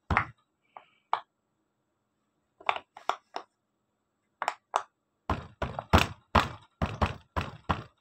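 Hand chopping down on a silicone pop-it fidget toy lying on a table, pushing its bubbles through with dull thunks. A few scattered strokes come first, then a quicker run of about three a second in the second half.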